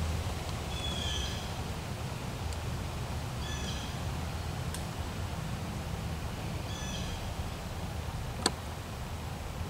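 A woodland bird giving a short call about every three seconds over a steady low hum, with one sharp click near the end.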